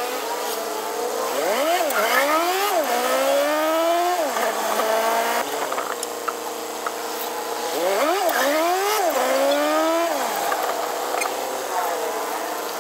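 Passenger jeepney's engine heard from inside the cabin, speeding up twice, about a second in and again near eight seconds. Each time the pitch climbs, drops back at a gear change and climbs again, with a steady hum in between.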